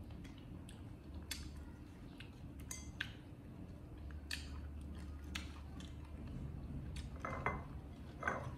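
Scattered light clinks and taps of dishes and eating utensils, a few seconds apart, over a low steady hum.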